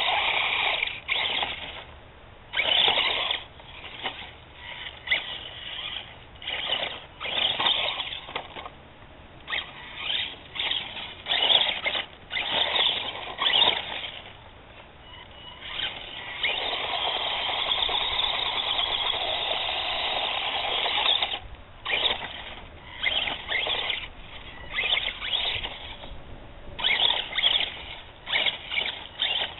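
Electric motor and gear train of an HPI Mini Recon 1/18-scale RC truck whining in short bursts as the throttle is blipped on and off, with one longer steady run of about five seconds past the middle.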